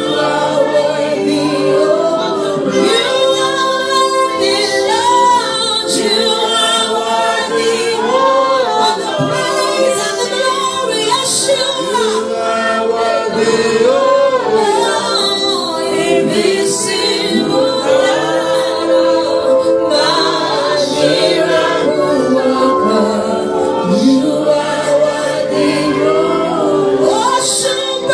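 Gospel worship singing: voices singing a slow, sustained melody over steady held chords.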